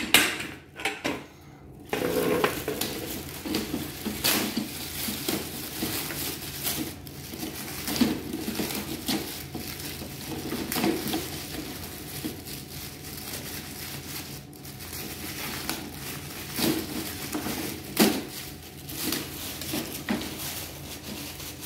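Plastic wrapping crinkling and rustling on a lawn mower handle as it is handled, with scattered knocks and clicks of the handle parts.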